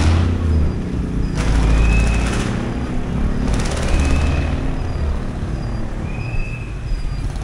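Street traffic: engines of motorbikes and cars running close by with a low rumble, and three passing surges of noise. A short high squeak repeats every couple of seconds.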